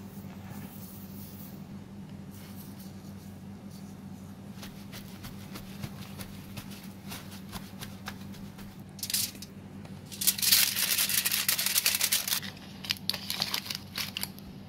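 Light rubbing and small taps of fingers dabbing pork skin with kitchen paper, then loud crinkling of aluminium foil being folded around the pork belly, starting about nine seconds in with the longest burst just after. A steady low hum runs underneath.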